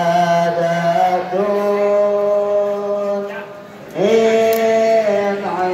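Men's voices chanting an Arabic devotional verse in long, slowly drawn-out held notes. The singing drops away briefly a little past three seconds in, then comes back on a new held note at about four seconds.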